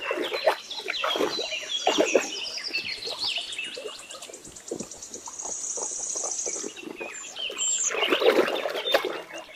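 Birds chirping in short falling calls, then a high, even trill for a couple of seconds, with scattered clicks and rustling from handling the toy.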